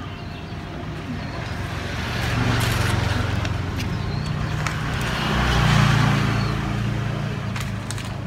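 Motor vehicle engine humming, swelling louder twice about three seconds apart, with a few light clicks near the end.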